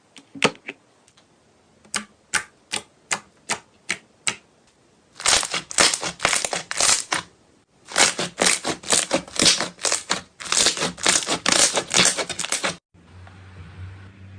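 Keys being typed: a few single key strikes, then two fast runs of clicking keystrokes that stop near the end, leaving a faint low hum.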